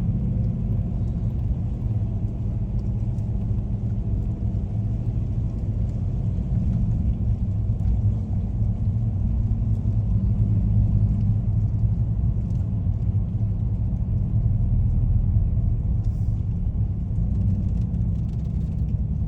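Car engine and road noise heard from inside the cabin: a steady low rumble with an even engine hum as the car climbs a steep hill.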